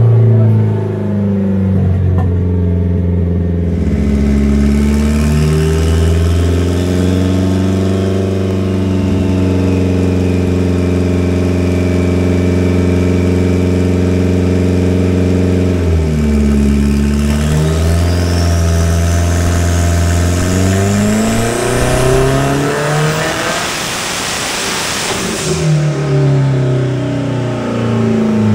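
Audi 1.8T 20-valve turbocharged four-cylinder engine running under load on a hub dyno. The revs climb and hold steady, dip briefly past the middle, then build into a loud pull with a high whine rising steeply in pitch. The pull cuts off suddenly near the end and the revs fall back.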